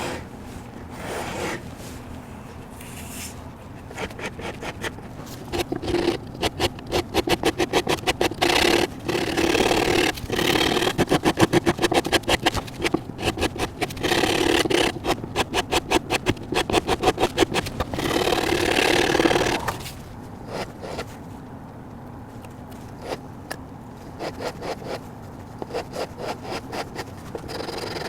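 Sandpaper rubbed by hand over wood in rapid back-and-forth strokes, blending a carved repair into the original profile. The strokes are strongest through the middle, then lighter and sparser near the end.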